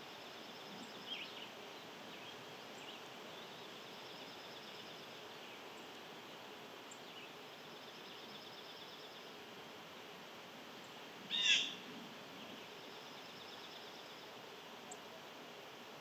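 Outdoor birdsong ambience: faint high trills repeating every few seconds over a steady background hiss, a short chirp about a second in, and one loud, sharp call about eleven seconds in.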